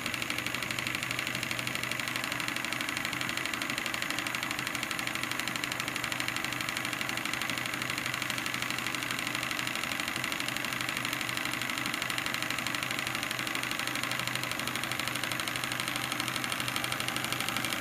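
Stuart 10H single-cylinder horizontal model steam engine running steadily under boiler steam, with a rapid, even beat over a steady hiss.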